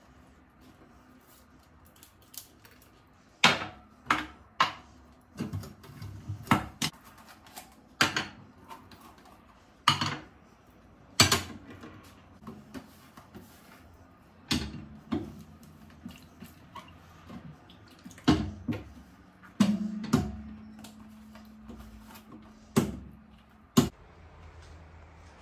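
Dishes and kitchenware being handled: irregular sharp clinks and knocks of hard pieces set down and moved, about fifteen loud strikes spread unevenly through the stretch.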